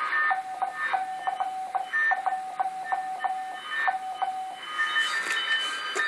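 Amateur-radio Morse code (CW) heard through a receiver's speaker: a mid-pitched tone keyed in dots and dashes, with faint clicks at each keying and a fainter higher tone alongside, over band hiss. The keyed tone stops about four and a half seconds in, leaving steady higher whistles.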